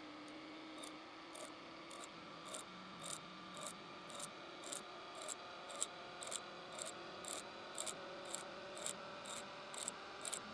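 Metal lathe running a facing cut, the tool scraping across the spinning part with faint, regular scratchy ticks about twice a second over a steady motor whine. The spindle is being sped up on its variable-frequency drive as the cut moves inward, until the drive reaches its speed limit.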